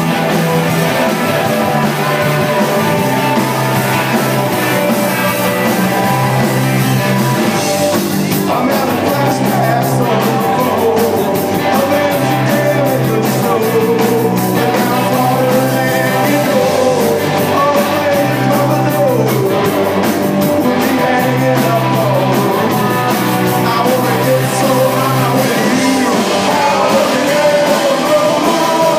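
Rock band playing live: electric guitars over a stepping bass line and drums. The drums and cymbals grow denser from about eight seconds in, under a melody line that slides in pitch.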